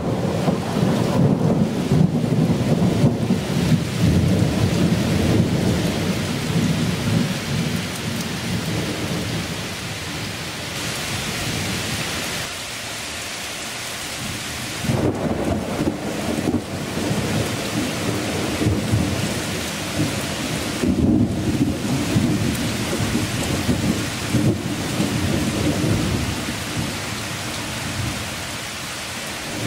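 Heavy rain pouring onto pavement and trees, with a continuous low rumble underneath that eases about twelve seconds in and builds again a few seconds later.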